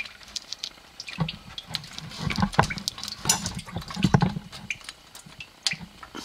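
Coolant running and dripping out of an engine block into a drain pan, with irregular metal clicks and knocks as the old block heater is wiggled out of the block. The running is heaviest from about a second in to past four seconds.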